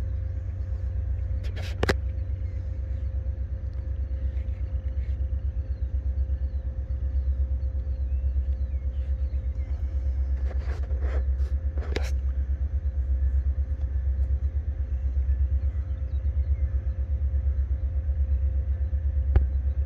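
Wind buffeting the microphone, a low fluttering rumble, with a steady faint tone over it and a few sharp clicks about two seconds in and again around eleven to twelve seconds in.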